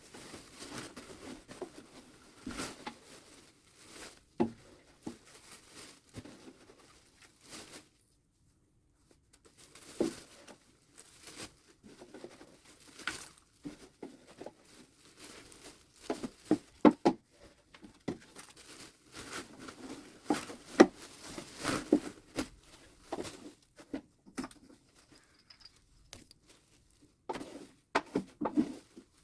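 Irregular rustling, crinkling and light knocks as old aspen bedding is scooped out of a mouse tank and bagged. The sound drops out to silence for a moment about eight seconds in, then gets busier toward the second half.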